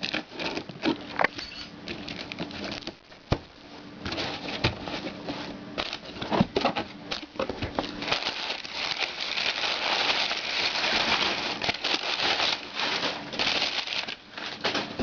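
A cardboard shipping box being opened and its packing material handled: scattered taps and clicks, then several seconds of dense rustling and crinkling in the second half.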